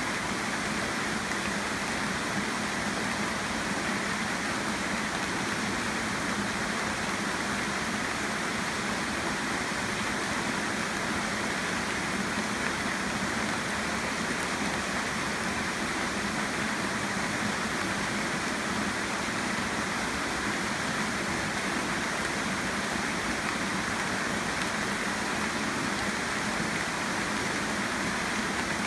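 Tropical rainstorm: rain falling steadily on rainforest palm fronds and foliage, an even hiss that holds the same strength throughout.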